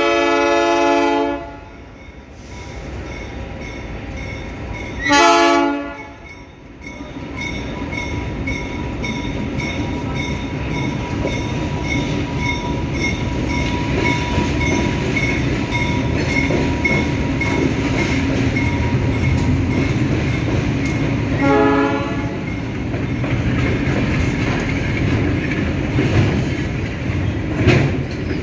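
Two GE U23CA diesel locomotives sounding their horn at a level crossing: a long blast ending about a second in, a short one around five seconds, and another around twenty-two seconds, as the train closes in. Between them the locomotives and wagons rumble past with clickety-clack of the wheels over the rail joints, growing louder from about seven seconds, while a level-crossing bell dings steadily.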